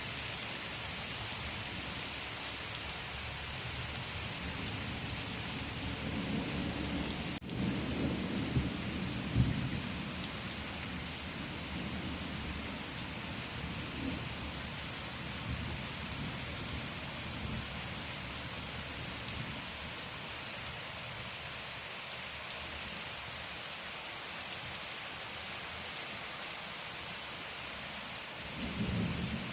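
Steady rain falling in an even hiss, with low rumbles of thunder swelling from about six to ten seconds in and again near the end.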